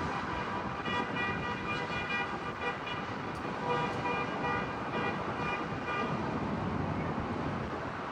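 Car horn honking several times in long blasts over steady traffic noise.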